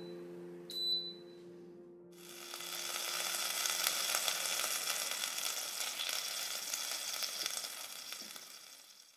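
A short high electronic beep from the air fryer about a second in, then freshly air-fried chicken drumsticks sizzling in the pulled-out basket, the hiss fading away near the end.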